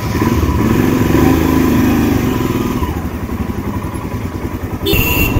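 Motorcycle engine running as the bike pulls away and rides, heard from the rider's seat, with a steady pulsing throb. A brief sharp, loud noise comes near the end.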